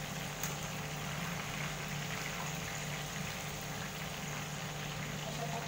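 Fish shallow-frying in hot oil in a frying pan: a steady sizzle under a low hum, with one light click of metal tongs about half a second in.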